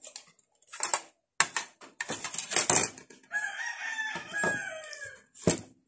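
Loud wet slurps and sucks as cooked snails in coconut sauce are sucked from their shells, with sharp clicks of a spoon on a steel bowl. About three seconds in, a rooster crows once, a call of nearly two seconds that drops at the end.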